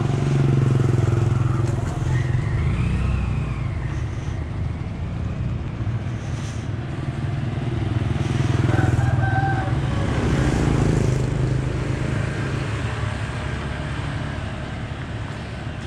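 Motor scooters passing along a street, over a steady low engine hum, loudest about half a second in and again around nine seconds in.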